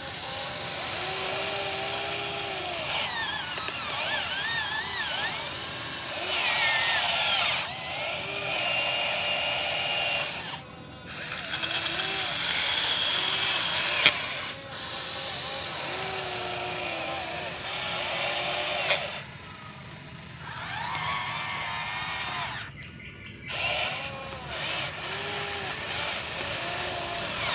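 Electric motors of an RC toy excavator whining as it works, the pitch rising and falling with the load and cutting out briefly a few times.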